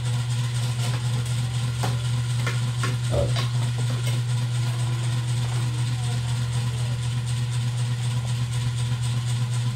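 A steady low hum, like a motor or appliance, with a few light clinks of spoons and forks on plates about two to four seconds in.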